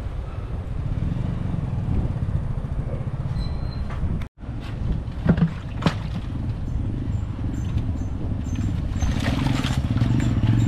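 An engine running steadily, with a brief drop-out a little over four seconds in and two short sharp squeaks soon after.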